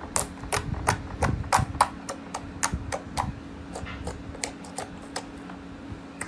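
Fingertips poking into thick, glossy slime, each poke and release making a sharp pop or click as air is trapped and let out, several a second; the pops are louder in the first half and fainter later.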